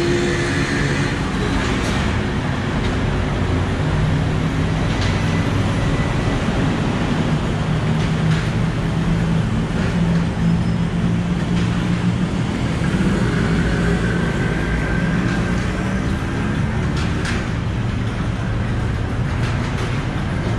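Road traffic: vehicle engines running close by, a steady low rumble with a few faint clicks over it.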